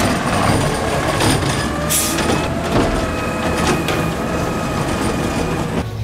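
Garbage truck with a McNeilus body, its engine running with a faint steady whine. There is a short sharp hiss about two seconds in.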